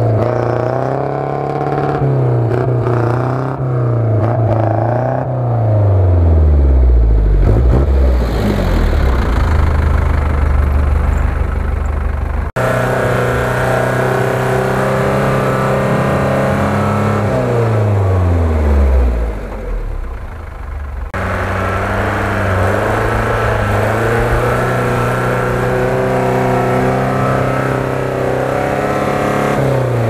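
Off-road 4x4 engines revving under load in deep snow, the engine pitch swinging up and down and several times sinking away to a low drone. About 12 seconds in the sound cuts abruptly to a UAZ-469's engine, which revs and falls off in the same way.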